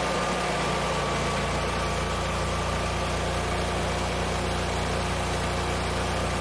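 Generac 22 kW home standby generator running steadily under electrical load, an even engine drone with a faint steady whine over it.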